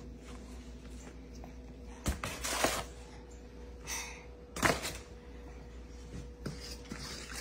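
A few light knocks and short rustles: a silicone spatula tapping against a stainless steel mixing bowl as flour is added from a paper bag.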